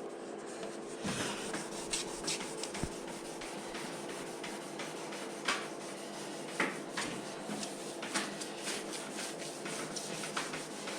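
Hand sanding on a painted scooter side panel: abrasive paper rubbing over the paint in short, irregular strokes. The strokes are most likely flatting out paint drips, runs in the finish left by the spray gun.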